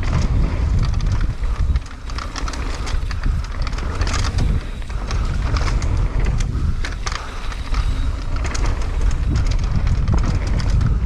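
Wind buffeting the microphone of a mountain bike riding a trail, with tyre noise and frequent short clicks and rattles from the bike.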